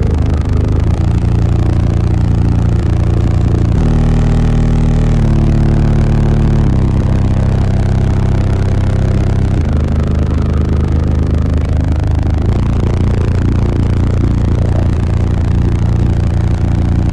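Six 15-inch Sundown U15 subwoofers on a Taramps 30K amplifier playing a bass-heavy song very loudly inside the vehicle's cabin. Low bass notes are each held for a second or two before stepping to another pitch, with a buzzing rattle running through them.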